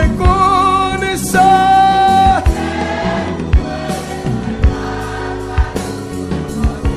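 Gospel worship music: voices sing long held notes with a wavering vibrato for the first two seconds or so, then the band carries on with drums and bass.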